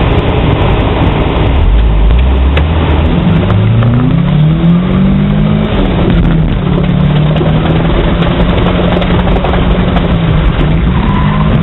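Car engine at full throttle, its pitch climbing through the first few seconds and then holding roughly steady at speed. Near the end a high tire squeal begins as the car enters a turn.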